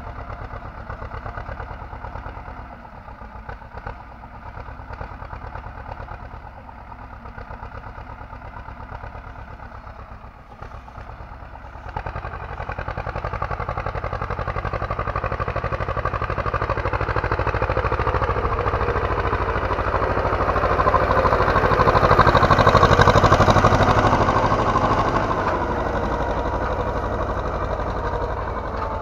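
T-25 Vladimirets tractor's two-cylinder air-cooled diesel working under load, pulling a three-bottom plough through the soil. It is fainter at first, grows louder suddenly about twelve seconds in, is loudest a little past the middle, then eases off.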